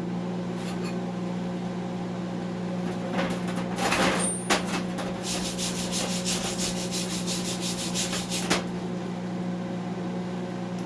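Gasless flux-core wire-feed welder arc crackling on 3/8-inch steel plate, starting about three seconds in and stopping suddenly about eight and a half seconds in, over a steady electrical hum.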